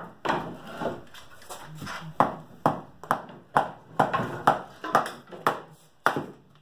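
A hatchet being knocked down through a stick of kindling on a chopping block, about a dozen sharp knocks roughly two a second, each with a short ring. It is splitting the wood slowly for a gradual crack.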